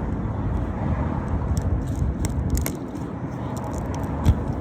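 Small clicks and light scrapes of tire plug repair tools being handled against a tire, starting about a second and a half in, with a sharper knock near the end, over a steady low outdoor rumble.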